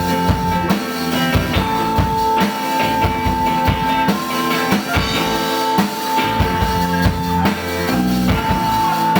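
Rock band playing live in an instrumental passage: a steady drum-kit beat with bass and guitar, and a high held lead note that comes back in long stretches every couple of seconds.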